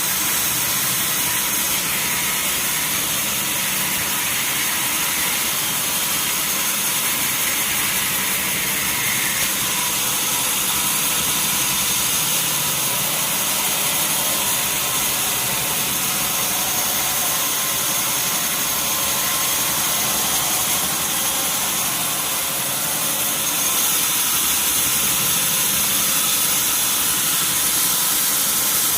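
Sawmill machinery running: a steady mechanical drone with a strong high hiss, getting a little louder about three-quarters of the way through.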